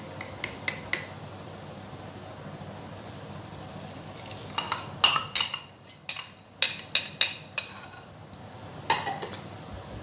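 Metal spoon scraping and clinking against a small ceramic bowl as the yeast mixture is tipped out: a quick series of sharp clinks, each ringing briefly, from about four and a half to almost eight seconds in, and one more clink near the end.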